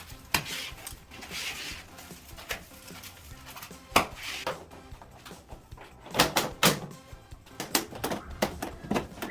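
Irregular knocks and clicks of hands-on installation work, several in quick succession about six seconds in, with rustling between them.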